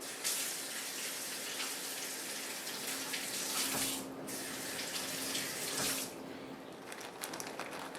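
Water running from a tap into a sink, a steady rush that briefly changes about four seconds in and stops about six seconds in. A few light clicks and handling sounds follow.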